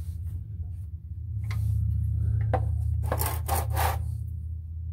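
Combination wrench turning and breaking loose a 17 mm oil pan drain bolt: metal scraping and clicking, with a dense cluster of clicks and scrapes about three seconds in, over a steady low hum.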